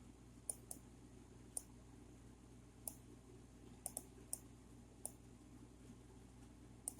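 Computer mouse clicking: about ten short single clicks at irregular intervals, some in quick pairs, over a faint steady hum.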